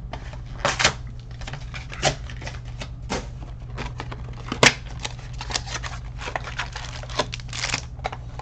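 A Topps Finest hobby box being opened and its foil packs pulled out and handled: a scattered run of cardboard and foil-wrapper crinkles, rustles and clicks, the sharpest snap about four and a half seconds in.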